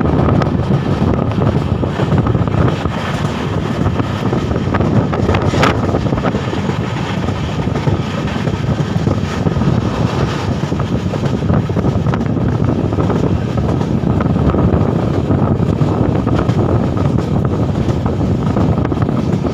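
Steady running noise of a train at speed, heard from an open doorway, with wind buffeting the microphone. A brief high squeal sounds about six seconds in.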